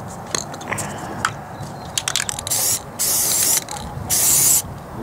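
Aerosol spray can of white primer hissing in three short spurts of about half a second each in the second half. Scattered light clicks come before the spurts.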